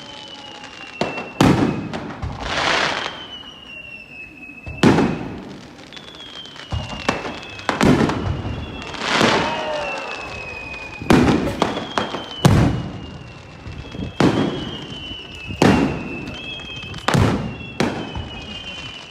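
Fireworks display: aerial shells bursting with sharp bangs every one to three seconds, some followed by a second or so of crackling, with high whistles slowly falling in pitch between the bursts.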